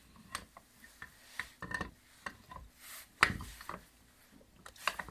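Handling of an angle grinder's wheel guard being lined up and fitted onto the gear housing: scattered light clicks, taps and rubbing, with one sharper knock about three seconds in.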